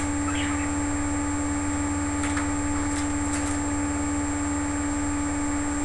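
Steady electrical hum with a low buzz and a clear held tone, at an even level. A few faint, very short high chirps or clicks stand out over it.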